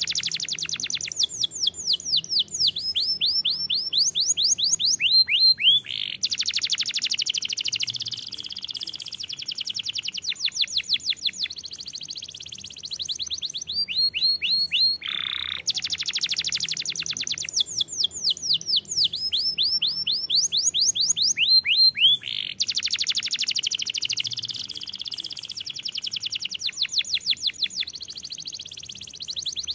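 Domestic canary singing a long, continuous song of fast trills and rapid repeated sweeping notes, broken by short pauses between phrases. The same run of phrases plays again from about halfway through.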